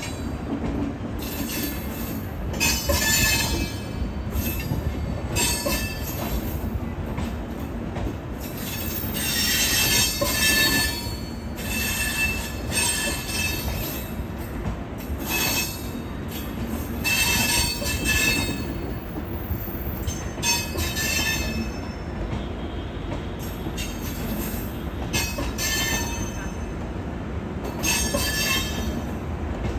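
Humsafar Express LHB passenger coaches rolling past, with a steady rumble of wheels on rail and high-pitched wheel squeals that come and go every second or two.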